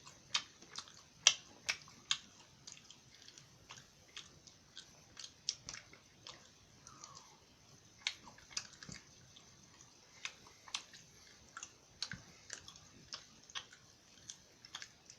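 A person chewing soft string cheese, a long run of small, irregular wet mouth clicks and smacks.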